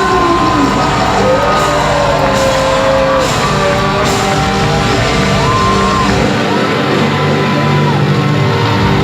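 Live rock concert music heard from the audience, loud and dense, with a voice singing a melody over the band.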